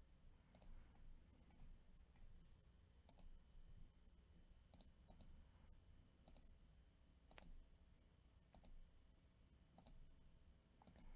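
Faint computer mouse clicks, about ten at uneven intervals, as a button is clicked over and over; otherwise near silence.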